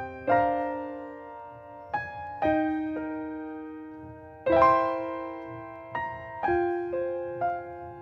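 Slow, gentle piano music: single notes and chords struck every second or so, each ringing out and fading.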